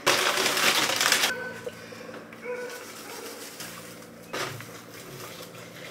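Paper flower wrapping crinkling loudly for about the first second as a bouquet is unwrapped, then quieter rustling and handling with one short knock about four seconds in.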